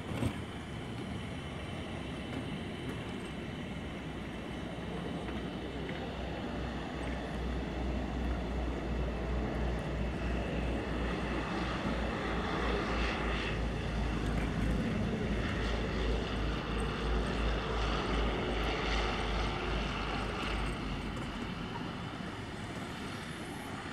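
Canadair CL-215 water bomber's twin Pratt & Whitney R-2800 radial piston engines and propellers running, with a low throb. The sound builds steadily, is loudest a little past the middle, then fades as the aircraft moves away.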